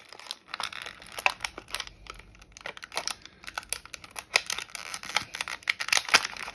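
Plastic toy packaging being handled and pulled open, crinkling with a run of sharp little clicks and crackles.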